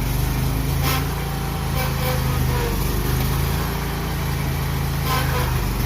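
Riding lawn mower's small gasoline engine running steadily while the mower is driven back and forth.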